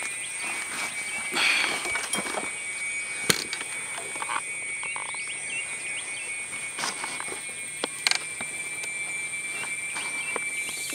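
Outdoor chorus of insects and frogs: a steady high-pitched insect drone with a second, lower steady trill beneath it, broken by a few sharp clicks.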